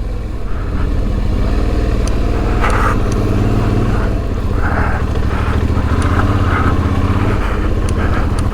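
2008 Suzuki V-Strom 650's V-twin engine with a Delkevic exhaust running steadily as the bike rides along, heard through a helmet mic. A few sharp knocks and rattles come from loose cameras and tripods bouncing in the top box.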